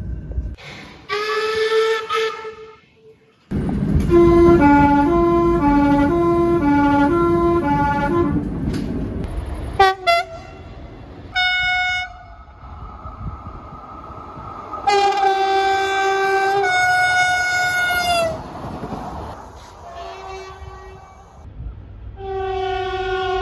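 Train horns sounding in a string of separate blasts. A short blast comes about a second in. From about 3.5 s, over the rumble of a passing train, a horn alternates between two notes about twice a second. Several short toots follow, then a long two-tone blast that steps down in pitch, and another blast near the end.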